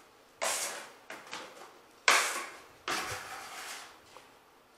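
Drywall taping tools, a metal hawk and a knife, being handled: three sharp scraping clatters about half a second, two seconds and three seconds in, the middle one loudest.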